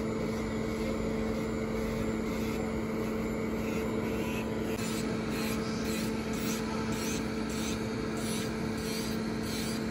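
Electric nail drill running at a steady hum as the bit works around a fingernail's cuticle; from about halfway a rhythmic grinding comes in about twice a second as the bit is stroked against the nail.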